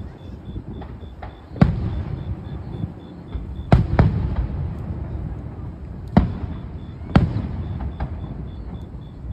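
Aerial fireworks bursting: five loud bangs, two of them close together near the middle, each followed by a low rolling rumble, with a few fainter pops in between.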